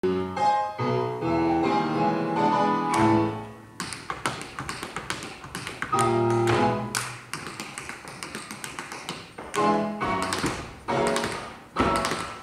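Instrumental music with tap dancing: quick clusters of sharp tap-shoe steps over the accompaniment.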